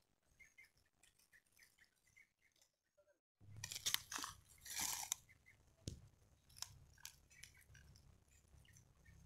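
Leaves and vine stems crackling and rustling close against the phone's microphone as it is pushed through the foliage, loudest about four to five seconds in, followed by scattered sharp clicks of handling.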